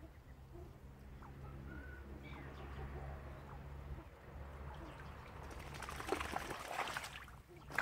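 Mandarin duck bathing in a shallow pond, a run of splashes near the end lasting about a second and a half. Before that there is only a low, steady hum and a few faint bird chirps.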